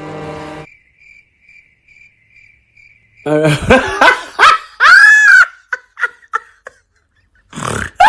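A string of loud, high-pitched whining calls that rise and fall in pitch, starting about three seconds in, after a faint run of evenly spaced high pips.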